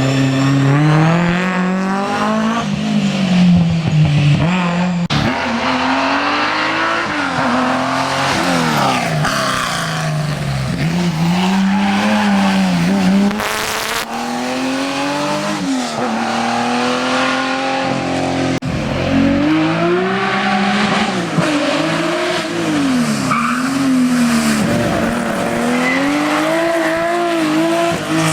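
Historic rally car engine at full stage pace, revving up and dropping back over and over as it changes gear and brakes for corners.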